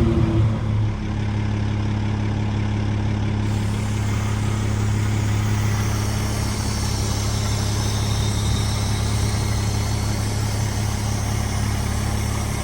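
A 2007 American LaFrance garbage truck's engine drops back about a second in and settles to a steady idle.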